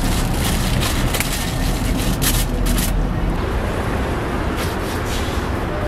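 Aluminium foil crinkling and crackling as it is folded around a burger, with most of the crackles in the first half, over a steady low background rumble.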